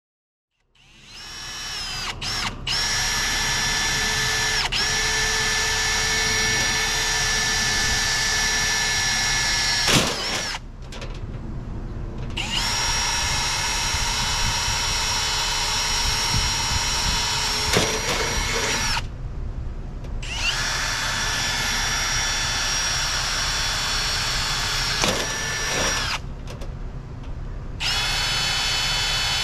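Electric power tool motor running at a steady high whine in long stretches of several seconds each, stopping and starting again three times.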